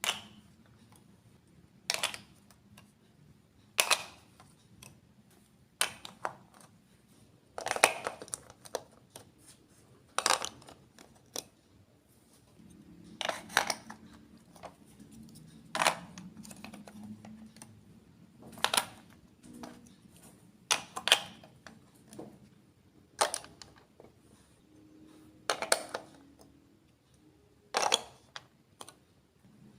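Plastic Lego Duplo bricks clicking and clacking as they are set down and pressed together one at a time, a sharp click every second or two.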